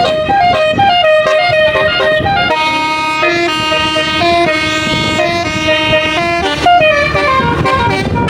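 Basuri telolet bus horn playing a tune: a run of quick, stepping notes, then longer held notes, then quick notes again near the end.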